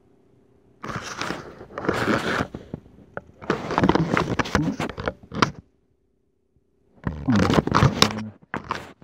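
Handling noise: fingers scraping and rubbing over the recording camera's body close to its microphone as it is picked up and moved, in rough bursts with a break of silence about two-thirds of the way through.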